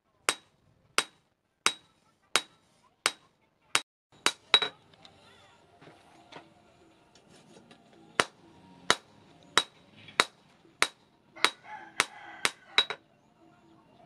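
Hand hammer striking a leaf-spring steel blade on a steel post anvil, a steady beat of about three blows every two seconds, each with a bright metallic ring. The blows stop for about three seconds near the middle, then resume and come a little faster near the end.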